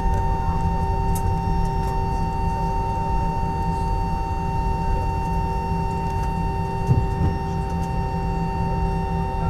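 Airliner cabin noise while taxiing: a steady low rumble under the constant whine of the jet engines, with a soft thump about seven seconds in.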